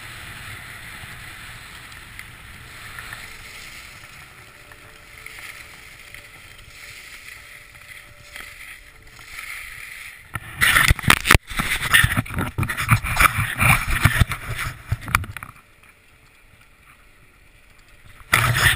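Skis sliding over packed snow with a steady hiss for about ten seconds, then loud rough scraping and rubbing for about five seconds as the skier stops and the body-mounted camera is handled, and another short burst of rubbing near the end as the camera swings against his jacket.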